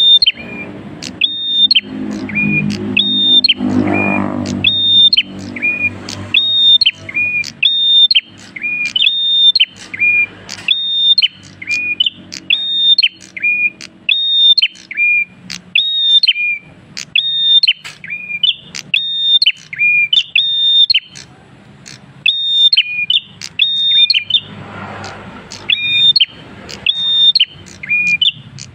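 Caged prenjak kristal singing steadily, over and over: a sharp, high whistled note followed by a lower one, about once a second. The song pauses briefly about three-quarters of the way through.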